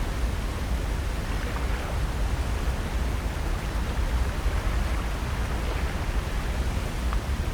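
Steady natural outdoor ambience: an even rushing noise with a low rumble beneath it, unchanging throughout.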